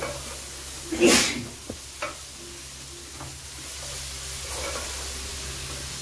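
Chopped onions frying in oil in a metal pot, stirred with a spatula: a steady sizzle, with a louder burst about a second in and a couple of light spatula knocks against the pot shortly after.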